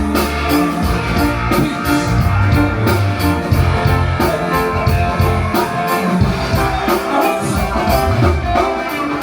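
Band music with guitar, bass notes and drum kit playing a steady beat over a sound system.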